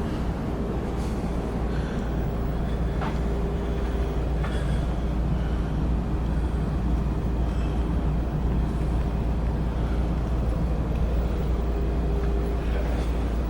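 Steady low machine rumble with a constant droning tone over it, as of a large engine running, with a few faint ticks.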